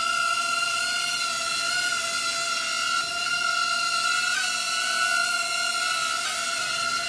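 Cheerson CX-10 nano quadcopter in flight, its four tiny motors and propellers giving a steady high whine that wavers briefly twice as the throttle shifts.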